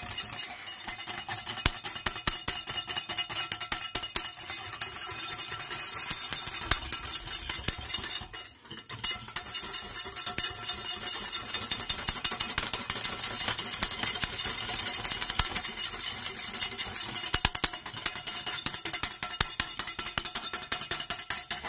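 Wire whisk beating egg yolks in a small stainless steel saucepan: a fast, continuous rattle of the wires against the metal, with a short break about eight seconds in. The yolks have curdled and are being whisked back into a smooth sabayon. Background music plays underneath.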